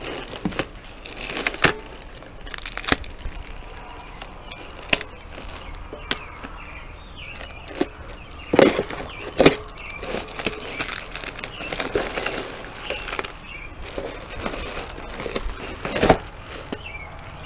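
Plastic packaging wrap crinkling and rustling as it is slit with a box cutter and pulled apart by hand, with irregular sharp snaps and clicks, the loudest a little after eight seconds, about a second later, and near the end.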